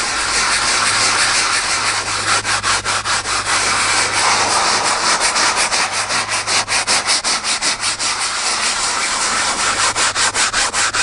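Cloth truck-seat upholstery being scrubbed hard by hand, working degreaser spot remover into the stained fabric: a scratchy rubbing in rapid back-and-forth strokes, about five a second.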